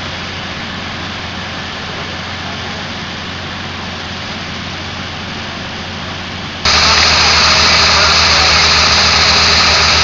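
A steady engine drone under a rushing hiss. About two-thirds of the way through, it turns abruptly louder and brighter.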